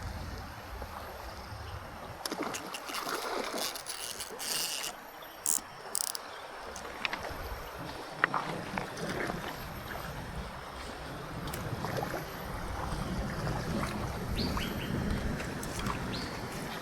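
River water moving, with a handful of sharp clicks and knocks: a cluster a few seconds in and a loud single one near the middle.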